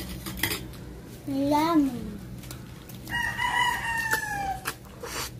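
A rooster crowing once, starting about three seconds in: one long call of about a second and a half that drops in pitch at its end.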